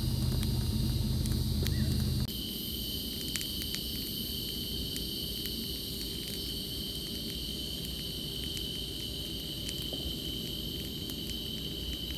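A low steady hum for about the first two seconds, then a steady high-pitched chorus of night insects trilling, with scattered sharp pops and crackles from a burning wood campfire.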